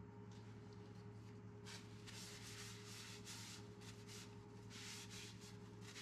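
A cloth rubbing over the wooden head of a mallet: soft swishing strokes starting about two seconds in, in two spells. A steady low hum runs underneath.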